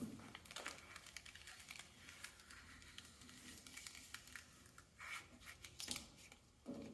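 Faint rustling and crinkling of the paper backing and transfer tape being handled and peeled off a cut vinyl decal, with a few light ticks and scrapes.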